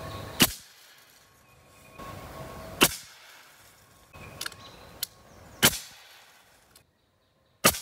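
Four sharp shots, a couple of seconds apart, from a modified AirForce Talon precharged pneumatic air rifle in .257 calibre with a TalonTunes Super High Output valve, firing 85-grain cast slugs. This is a velocity test string at close to 1,000 feet per second. Fainter clicks come between the shots.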